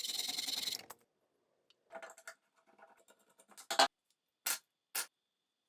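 Scraping for about a second, then scattered handling noise and three short sharp clicks or knocks, the first of them the loudest.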